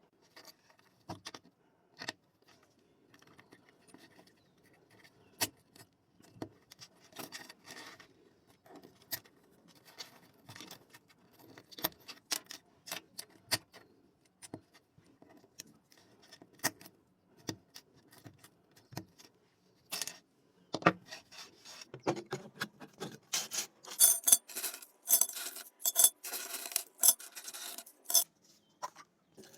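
Small hard plastic keyboard parts clicking, tapping and clattering as they are handled, with some rubbing. The clatter grows denser and louder over the last several seconds.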